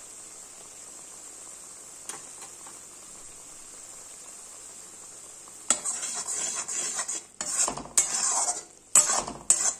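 Masala paste sizzling in hot mustard oil in a kadai, a steady hiss. About six seconds in, a spatula starts stirring and scraping the paste against the pan in loud, uneven strokes.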